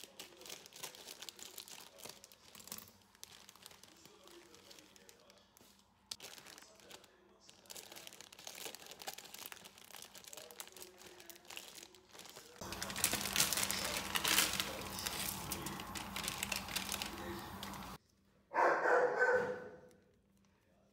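Crinkling and rustling, louder and denser for about five seconds past the middle, then a short louder sound near the end.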